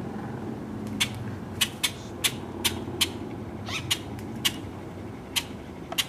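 Sharp, short clicks, about eight of them at uneven intervals, over a steady low rumble.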